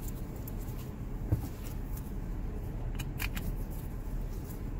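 A few scattered light clicks and handling noises, one about a second in and a cluster around three seconds in, over a steady low rumble.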